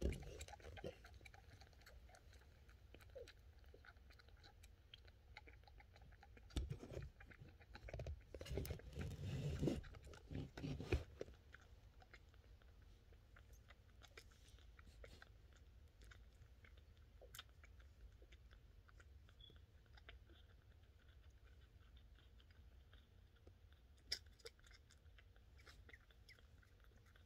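Faint wet sucking and smacking of a very young kitten nursing from a small feeding bottle. Louder rustling and knocks come between about seven and eleven seconds in.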